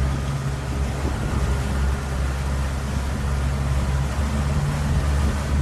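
Motorboat engine running steadily under way, a constant low drone, with wind and water rush over it.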